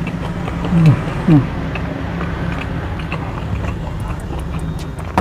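A man eating with his mouth full makes two short falling "mmm" hums around a second in, with faint clicks and smacks of chewing later on, over a steady low hum.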